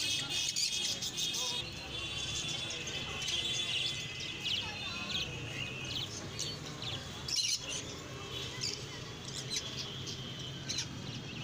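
Many small birds chirping and twittering at once, a dense steady chatter of short high calls over a low background hum.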